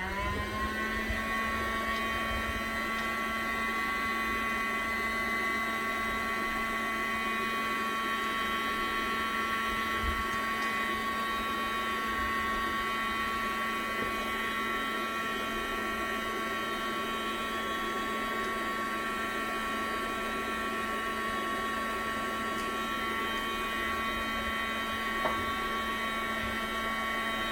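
Small electric motor of a prototype compressor-less liquid-cooling air conditioner spinning up as it is switched on, then running with a steady, even whine; a single brief click near the end.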